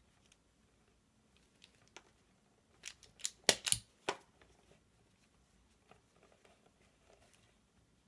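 DANIU self-adjusting automatic wire stripper snapping through its stroke on a cable: a couple of faint clicks, then a quick run of sharp clacks about three seconds in as the jaws grip, pull off the insulation and spring open.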